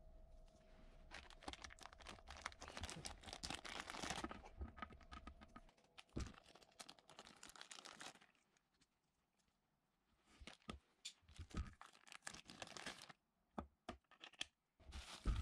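Plastic packaging bags crinkling and rustling as camera accessories are unwrapped, in irregular bursts. There is a short near-silent pause past the middle, then several sharp clicks and more rustling near the end.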